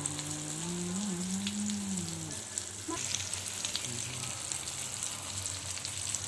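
Marinated fish pieces frying in hot oil in a pan: a steady sizzle with small crackles and spits throughout. A low wavering hum sounds over it for the first two seconds or so.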